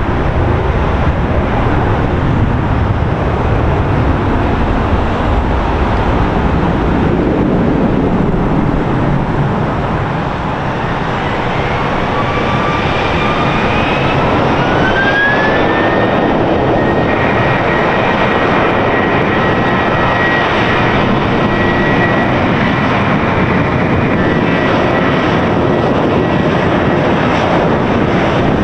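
Jet airliner engines running loud, with a whine that rises in pitch about halfway through and then holds at one high pitch for about ten seconds.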